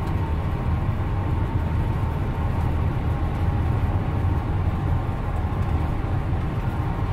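Steady road noise inside a car's cabin while cruising at highway speed: a low, even rumble of tyres and engine with no sudden sounds.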